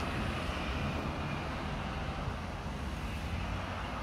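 Road traffic: cars driving along the road, a steady noise of engines and tyres.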